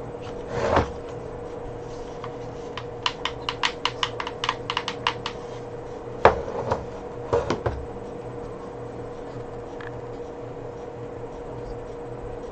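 Computer keyboard keys clicking: a quick run of about a dozen keystrokes, then a louder single click and a few more, over a steady hum. A brief rustle comes just before.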